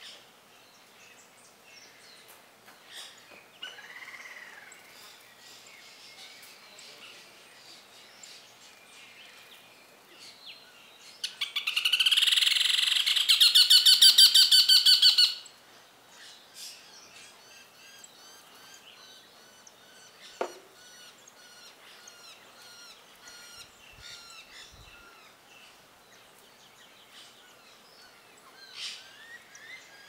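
Lineated woodpecker calling: a rapid run of ringing, evenly repeated notes lasting about four seconds, starting about eleven seconds in. Faint chirps of other birds sound around it.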